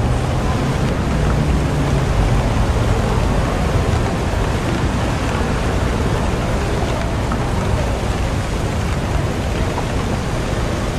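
Steady, heavy rain falling, with a low rumble underneath that is strongest in the first few seconds.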